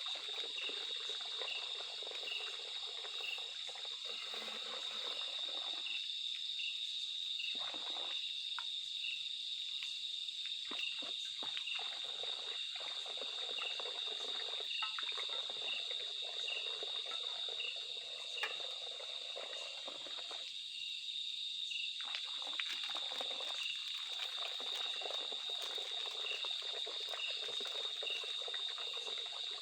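Outdoor chorus of insects: a steady, high shrill with an evenly repeating chirp a little faster than once a second. Beneath it is a lower background chorus, possibly frogs, that breaks off for a second or two a few times.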